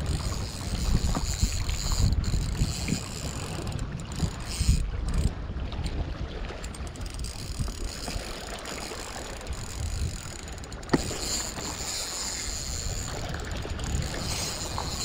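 Daiwa Fuego 3000 LT spinning reel being cranked steadily against a hooked fish, with wind buffeting the microphone.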